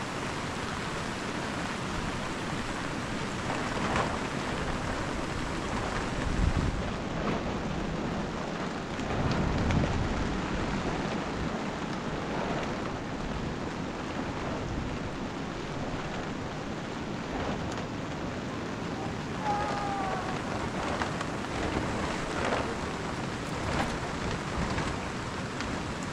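Steady rain falling, with two low rumbles about six and nine seconds in.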